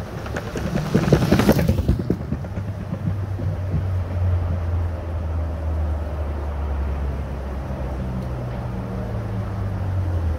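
Riding an electric skateboard: wind rushing over the microphone for the first two seconds, then a steady low hum that cuts off suddenly at the end.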